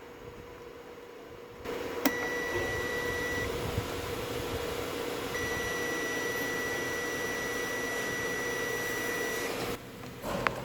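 Digital multimeter in continuity mode beeping steadily as the probes touch a shorted rail on the TV main board: a click and a high beep lasting about a second and a half, then a longer beep of about four seconds. The unbroken tone is the sign of a dead short on the standby 3.3 V rail. A steady hiss sits under both beeps.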